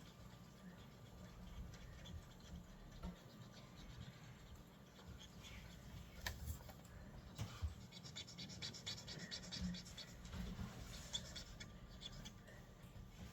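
Felt-tip marker scratching on paper while filling in an area with black, faint, with a run of quick back-and-forth strokes in the second half.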